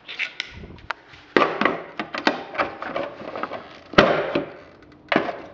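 Irregular sharp clicks and knocks of an RC truck's plastic body shell and its body clips being handled and pulled off, with the loudest knock about four seconds in.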